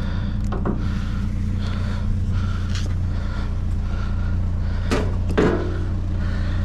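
Vehicle engine idling with a steady low hum, with a few short clunks and knocks over it, the loudest about five seconds in.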